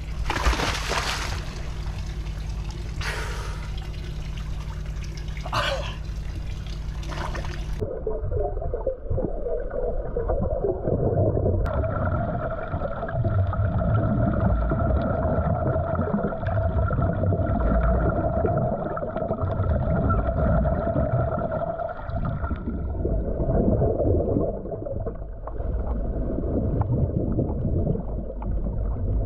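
Splashing as a diver lowers himself into the water over a steady hum. After about eight seconds the sound becomes muffled and underwater: irregular rumbling gurgles of exhaled regulator bubbles, with a steady tone and the rasp of a scrub pad on the fibreglass hull.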